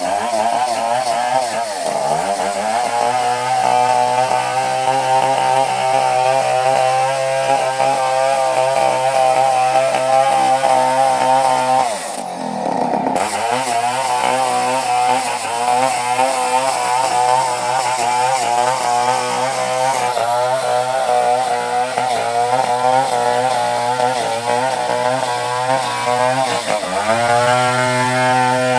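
Two-stroke chainsaw running at high speed, cutting coconut-palm wood. Its engine note drops and climbs back three times, near the start, about halfway and near the end.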